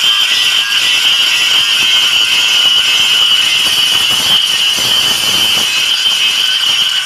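Angle grinder grinding steel, a steady high-pitched whine with a hiss as the disc bites into the scrap-metal blank of a hoe, throwing sparks.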